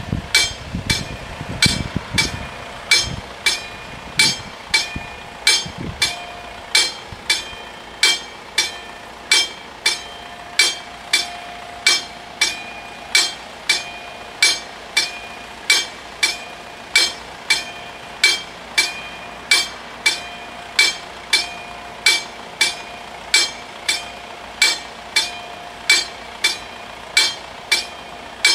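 Level-crossing warning bells struck by electric hammers, ringing in a steady rhythm of about three strikes every two seconds, each stroke with a short metallic ring: the crossing's warning is active for an approaching train. A low rumble under the bells dies away in the first six seconds.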